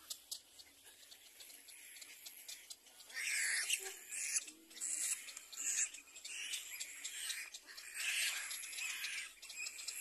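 Little black cormorant chicks calling in the nest: harsh, raspy begging calls in repeated bouts, the loudest about three seconds in and again near the end.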